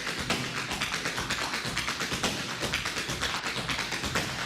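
Tap dancing: tap shoes striking the floor in a fast, dense run of steps, several sharp taps a second.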